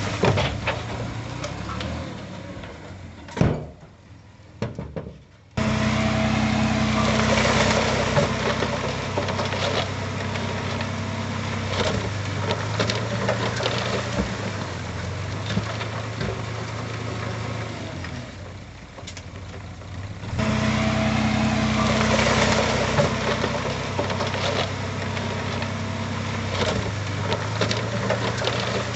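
Heavy-equipment diesel engine running steadily with scattered metallic clanks and knocks. The sound drops away twice and comes back suddenly, about five seconds in and again about twenty seconds in.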